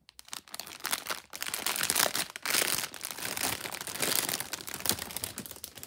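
Clear plastic bag crinkling and rustling as hands work a toy dog out of it, a dense crackle that builds to its loudest in the middle and eases off near the end.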